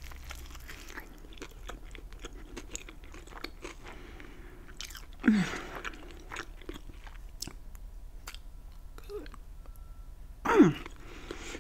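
Close-up chewing of a fried, buffalo-sauced chicken drumstick, with small wet mouth clicks and crunches throughout. Two short hums falling in pitch come about five seconds and ten and a half seconds in.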